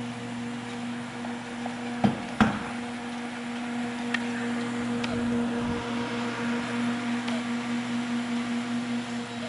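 Vitronics GP-104 reflow furnace running: a steady electrical hum over a rushing haze of fan or blower air, with two sharp clicks about two seconds in and a few faint ticks.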